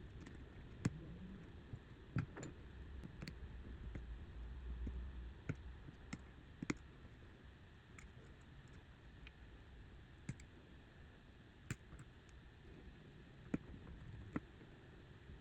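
Scattered small sharp clicks, about ten in fifteen seconds, of small tools and parts on a Samsung Galaxy S23 Ultra's internals as its screws and motherboard components are taken out, over a faint low hum.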